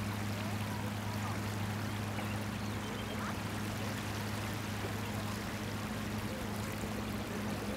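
Sea waves washing on a sandy beach in a steady, even rush of surf. A steady low hum runs underneath.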